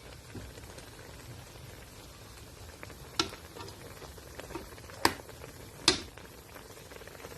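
Vegetables in a vinegar pickling mixture simmering in a pan with a steady soft bubbling. A utensil knocks sharply against the pan three times, about three, five and six seconds in.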